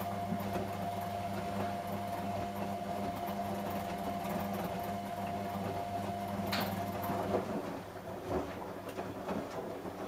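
Samsung Eco Bubble and Whirlpool front-loading washing machines running a fast wash, the drum motors giving a steady hum. About seven seconds in, just after a short high squeak, the hum stops and rougher sounds of laundry tumbling in the drum take over.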